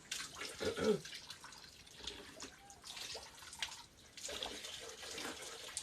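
Spring water trickling and dripping out of a rock, in small irregular splashes.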